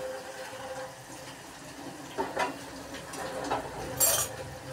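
Potato fries deep-frying in hot oil in a wok, a steady sizzling and bubbling. A perforated metal skimmer knocks and scrapes against the pan a few times, with a brief louder hiss about four seconds in.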